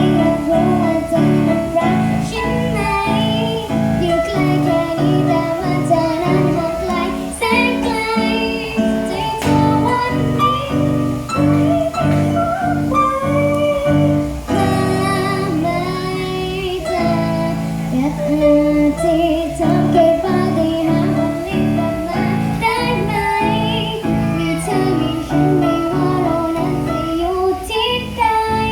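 A young female voice singing a Thai pop song over a backing track of guitar and evenly pulsing chords.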